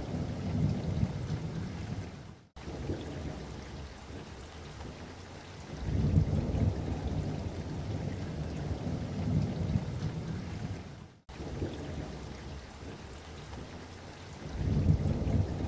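Low rumbling noise, like a thunderstorm with rain, that rises and falls in slow swells and twice cuts out abruptly to silence for an instant.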